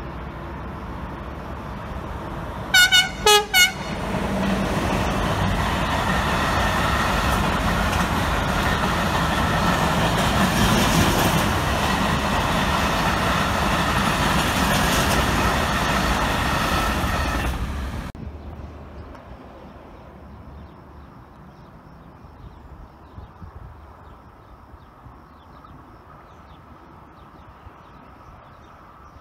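Freight train locomotive horn giving three short toots, then a long container freight train rolling past close by, a steady loud rumble and clatter of wagons on the rails that cuts off suddenly about 18 seconds in.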